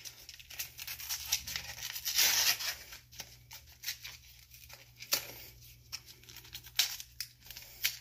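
Butter wrapper being crinkled and torn open in irregular short rustles, with a few sharp clicks and taps from handling.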